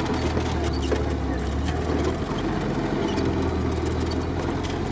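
Off-road 4x4's engine running under way, heard inside its cab as a steady low drone, with scattered light clicks and rattles.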